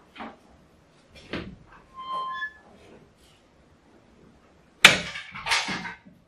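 A car body shell turning on a rotisserie: light knocks and a short squeak. Near the end come two loud, rough metallic clatters.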